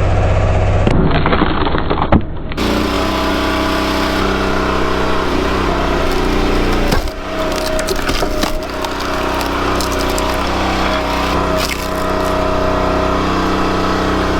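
Engine of a log splitter running steadily while logs crack and splinter as they are split, with several sharp cracks partway through.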